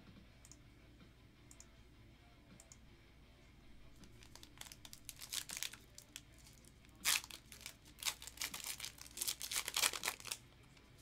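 Foil wrapper of a trading-card pack being torn open and crinkled by hand. It starts a few seconds in as a run of crinkling and ripping, with the sharpest tears about two-thirds of the way through and again near the end.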